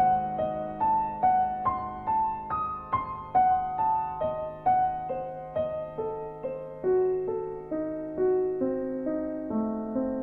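Background piano music: a slow melody of single struck notes, about two a second, over steady held low notes.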